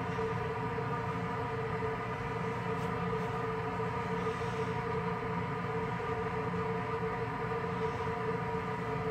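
Steady mechanical drone made of several held tones over a low rumble, never changing in pitch or loudness.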